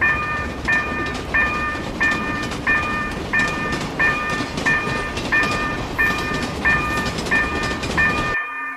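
Japanese level-crossing bell ringing its repeated 'kan-kan' about one and a half strikes a second, while a train runs past with a steady rumble and clickety-clack. The train noise cuts off suddenly near the end, leaving the bell ringing on its own.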